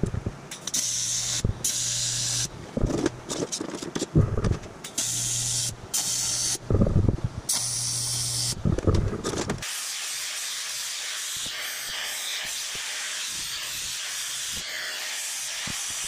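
TIG welder arc on cast aluminium, buzzing with a crackling hiss in about five short runs, with knocks between them. About ten seconds in it gives way to a steady even hiss that lasts to the end.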